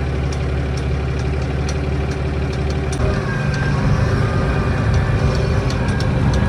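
Farm vehicle engine idling steadily. About halfway through, the note changes abruptly to a higher-pitched running sound with a faint whine.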